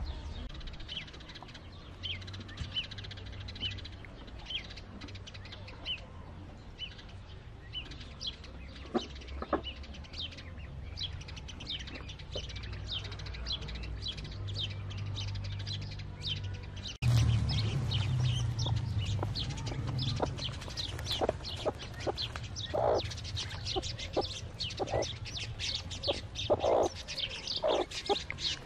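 Newly hatched Fayoumi chicks peeping: many short, high cheeps that come thicker and louder after a sudden change about two-thirds of the way in, with a few lower short calls among them and a steady low hum underneath.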